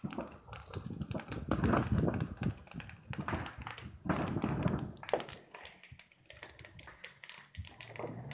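Distant neighborhood fireworks: a run of pops and crackles, with a few louder bursts between about one and a half and five seconds in.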